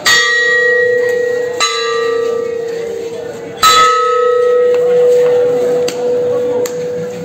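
Large metal temple bell struck three times, the strikes about one and a half and two seconds apart, each leaving a long steady ringing hum that carries on between strikes. Two fainter sharp knocks come near the end.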